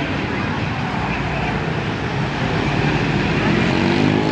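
A large tour bus passing, its engine and road noise loud and steady. Near the end a pitched horn tone starts up: the bus's telolet horn beginning to sound.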